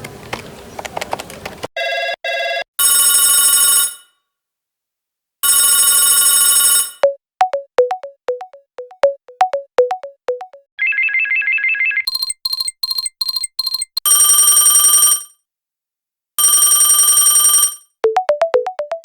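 A run of different telephone ringtones, one after another with short gaps. There are electronic ring bursts of about a second each, a short ringtone melody of quick notes, a warbling trill, and a rapid string of beeps.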